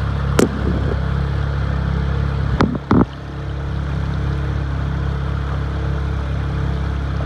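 Motorboat engine running at a steady speed under an even rush of wind and water, with a few brief knocks about half a second in and again around three seconds in.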